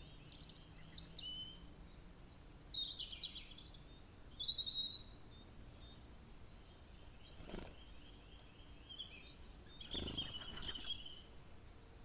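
Songbirds singing in short, high-pitched phrases, several times over. Near the end a brief flutter of wings as a pigeon flies in.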